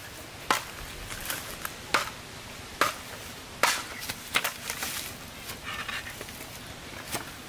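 Sharp knocks of a wooden stick beating on the back of a machete blade, driving it down through a green bamboo culm to split it lengthwise, roughly one knock a second.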